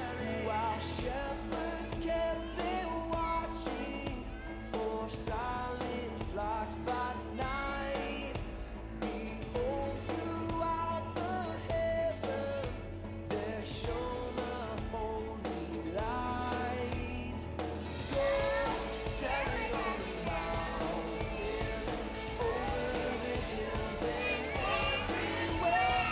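A group of young children singing a Christmas song along with instrumental backing music with a steady beat; the sound gets fuller about two-thirds of the way through.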